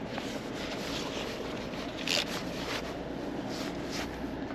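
Threaded towing eye being screwed by hand into the front tow point of a Scania truck: short metallic scraping rasps, the loudest about two seconds in, over a steady low hum.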